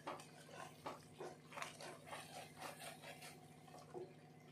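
Thick masala gravy simmering in a pan: faint, irregular bubbling pops, several a second, over a faint steady hum.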